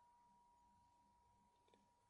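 Near silence: the very faint last ring of a large Korean Buddhist temple bell (beomjong) dying away, with a thin steady high tone lingering.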